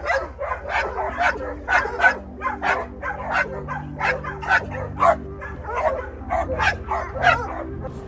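A pack of dogs barking excitedly again and again, about three barks a second, over the steady low hum of a farm utility vehicle's engine.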